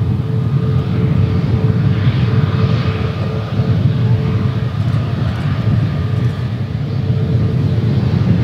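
Airbus A320neo's CFM LEAP-1A turbofan engines running as the airliner taxis: a steady low rumble with a constant whine held through the whole stretch.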